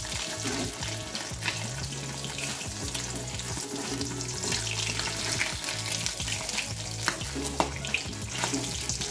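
Rohu fish pieces sizzling in hot frying oil in a steel kadai as they are lifted out, with a steel spatula clinking and scraping against the pan now and then.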